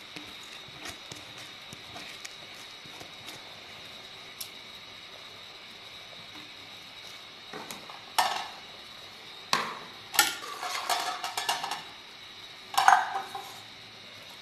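Metal ladle clattering and scraping against an aluminium pot as rice is stirred into boiling water, several knocks from about halfway through, the loudest near the end. A steady low hiss of the boil runs underneath.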